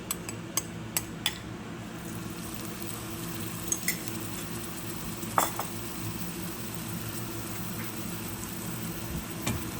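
Chopped onions frying in hot oil in a pan with a steady sizzle, and a spatula clicking against the pan a few times in the first second, then one clink about five and a half seconds in.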